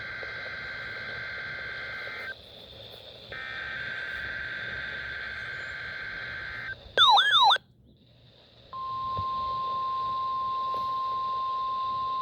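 NOAA Weather Radio SAME digital header bursts for a required weekly test: two screechy data bursts about three seconds each, a second apart. About seven seconds in comes a brief, loud warbling alert tone. After a second of near silence, the steady 1050 Hz warning alarm tone starts and holds, all over a constant radio hiss.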